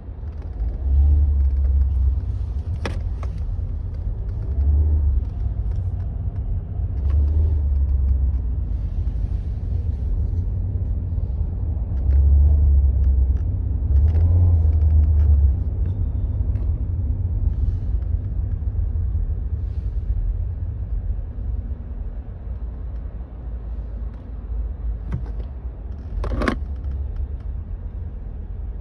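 Inside a Skoda Rapid's cabin while driving: a low engine and road rumble swells and eases several times with the throttle. Short plastic creaks and cracks come from the centre tunnel behind the climate control panel, two of them sharper, about three seconds in and near the end. It is an interior-trim creak that shows each time the car squats and rises on the accelerator, which the owner suspects comes from the air-duct joints to the main duct.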